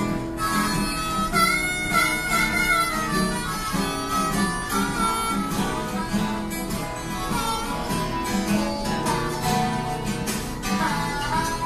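Instrumental jam: picked guitar keeping a steady rhythm under a lead instrument that holds long notes and bends them up and down.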